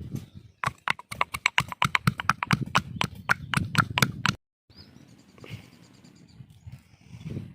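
A knife striking down through whole chicken onto the cutting surface in quick knocks, about five or six a second, as deep slashes are cut into the meat so the masala soaks in; the knocks stop near the middle, followed by faint bird chirps.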